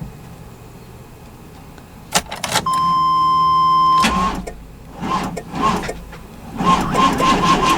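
Chevrolet 350 V8 plow truck being cranked over. A few clicks are followed by a steady high tone for about a second and a half. Then the starter cranks the engine in short bursts, and cranks steadily from about two-thirds of the way in, without the engine starting.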